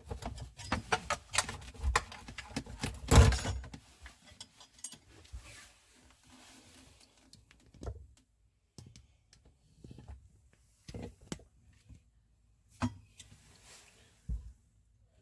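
Clinking and knocking of tools and metal parts being handled during a garbage disposal replacement. It is busy for the first few seconds, with the loudest knock about three seconds in, then thins out to a few scattered knocks.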